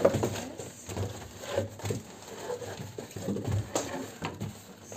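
Clear plastic dress cover rustling and crinkling as it is handled, with irregular soft knocks and thumps.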